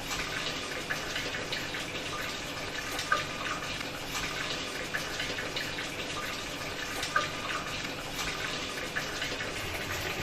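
Whirlpool top-loading washing machine filling with water during its auto-diagnostic test cycle: a steady rush of water into the tub, with small splashes and ticks.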